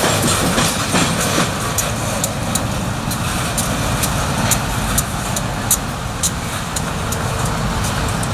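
A slow freight train rolling away: steel wheels give sharp clicks over the rail joints, several a second, over the low rumble of the diesel locomotives' engines.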